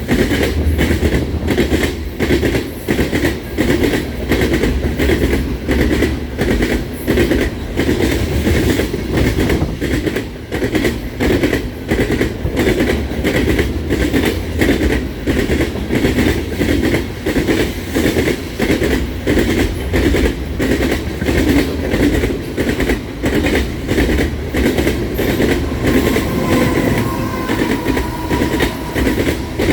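Freight cars of a loaded sand train rolling past, their wheels clicking over the rail joints in a steady, even rhythm over a continuous rumble, with a faint thin squeal near the end.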